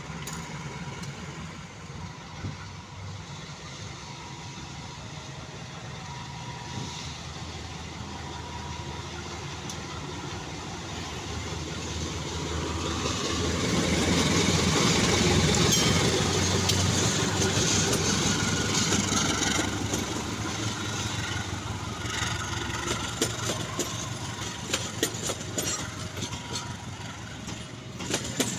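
A CC 203 diesel-electric locomotive hauling a passenger train approaches and passes close by. Its engine grows louder, peaking about halfway through. Near the end the coaches roll past with a fast clatter of wheels over the rails.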